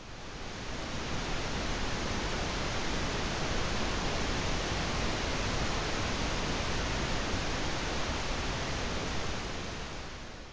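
A steady hiss of static-like noise spread evenly from low to high. It fades in at the start and fades out near the end.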